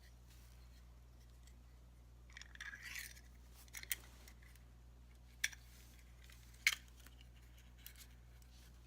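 Glock 43 magazine parts (spring, follower, base plate) being handled: a short scraping rustle, then three sharp clicks of plastic and metal over about three seconds, with a faint click near the end.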